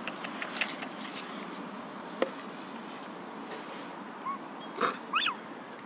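Baby macaque giving short high-pitched calls: a brief rising squeak about four seconds in, then a short noisy huff and a rising-and-falling call near the end. A single sharp click sounds about two seconds in.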